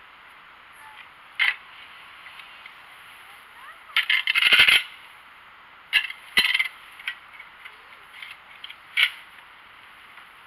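Garden fork's metal tines scraping and clinking as they dig into and lift dry leaves while a compost pile is turned, the leaves crunching. A few sharp clicks, with a louder burst of crunching about four seconds in.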